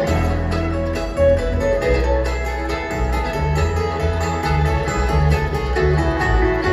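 Live bluegrass instrumental: a flatpicked acoustic guitar and a banjo playing quick, dense notes over a low bass line.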